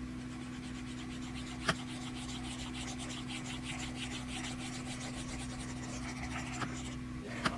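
Quick scratching strokes of a pencil scribbling on paper, over a low steady hum, with one sharp tick just under two seconds in.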